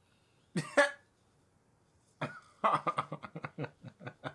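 A man laughing in a run of quick, rhythmic bursts, about five a second, that begins a little past two seconds in. A short single vocal burst, like a cough, comes about half a second in.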